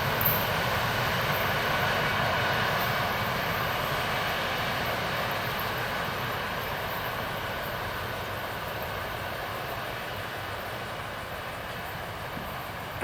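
A passing train's steady rolling rumble, slowly fading as it moves away.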